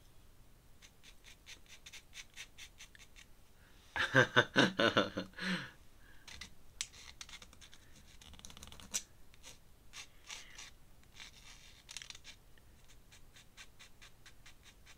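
Ink pen scratching across paper in many short, quick strokes, with a louder burst of sound about four seconds in that lasts over a second.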